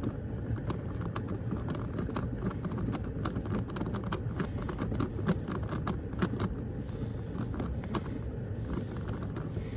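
QiYi Megaminx speed puzzle being turned by hand: a rapid, irregular clatter of plastic clicks as its faces snap around.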